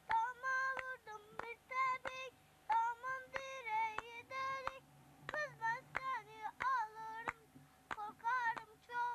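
A child's high voice singing a Turkish folk song (türkü), with hand claps keeping time about twice a second.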